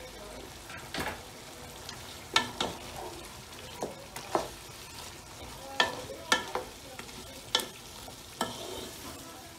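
Wooden spoon stirring chicken and tomato masala as it fries in a large metal pot, knocking sharply against the pot about ten times at irregular intervals over a steady sizzle.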